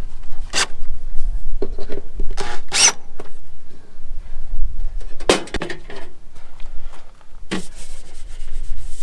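A handful of short scrapes and rubs, spaced a second or more apart, as the RV water heater's outside access door is handled, dropped onto its hinges and fastened.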